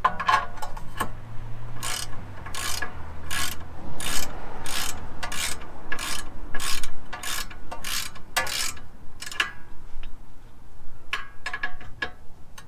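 Ratchet wrench with an 18 mm socket run down on the castle nut of an outer tie rod end. Each back stroke gives a short burst of pawl clicks, a stroke every half second or so, then a pause and a few last strokes near the end.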